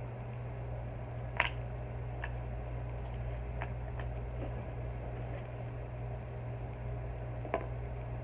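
Steady low electrical or fan hum, with a few light, sharp clicks and taps, the two loudest about a second and a half in and near the end.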